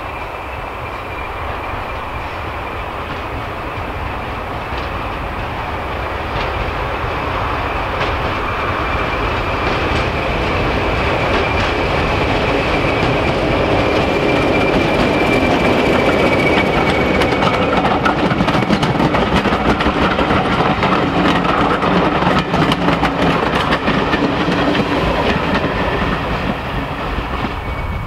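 British Rail Class 20 diesel locomotive's English Electric engine running under power, with a high steady whine, growing louder as it approaches and passes hauling coaches. Over the second half the coach wheels clatter over the rail joints.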